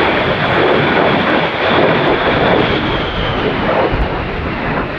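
Twin General Electric TF34 turbofan engines of a USAF A-10 Thunderbolt II in flight: a loud, steady jet roar with a high fan whine over it. The whine drops slightly in pitch near the end.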